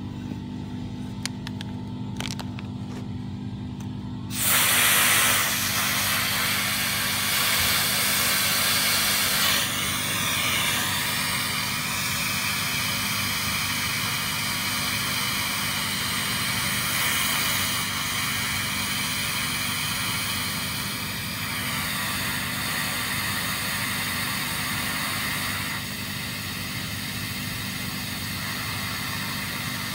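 Smoke jetting out of a pipe in the ground: a loud steady hiss that starts suddenly about four seconds in, with a steady high whistle riding on it for about ten seconds in the middle, over a low steady hum.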